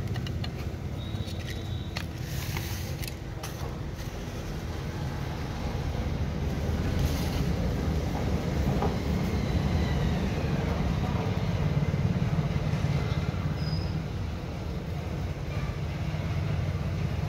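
Steady low rumble of background road traffic, with a few light clicks about two to four seconds in as the phone's motherboard is handled and lifted out of its frame.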